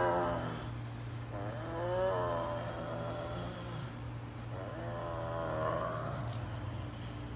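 Serval growling over a piece of raw meat, a food-guarding growl: three drawn-out growls, the middle one rising and falling in pitch, over a steady low hum.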